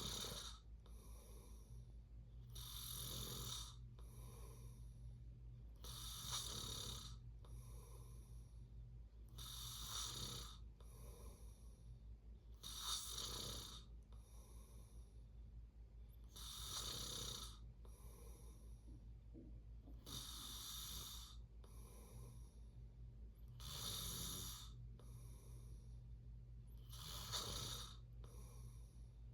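Someone snoring in a slow, even rhythm: a louder snore about every three and a half seconds, each followed by a softer breath. A steady low hum runs underneath.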